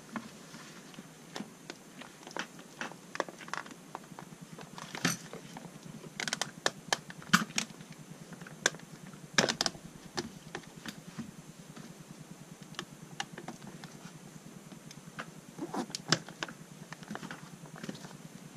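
Hands fitting a gel recoil pad onto the polymer buttstock of a Benelli Supernova shotgun: irregular clicks, taps and knocks of rubber and plastic as the pad is worked and pressed onto the stock. The loudest knocks come in a cluster about halfway through, with a few more near the end.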